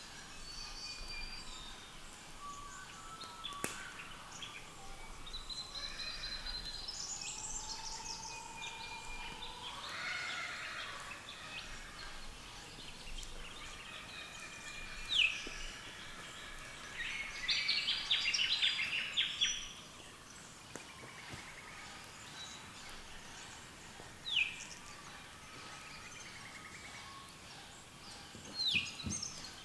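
A mixed early-morning chorus of wild birds: assorted whistles, trills and chirps from several birds, with a burst of fast chattering past the middle and a short, sharp downward whistle repeated three times.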